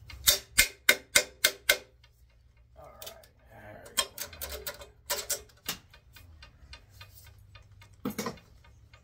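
Sharp metallic clinks with a short ring, about four a second for a second and a half, then a few more a couple of seconds later: steel hardware knocking together while a large transformer is being taken apart.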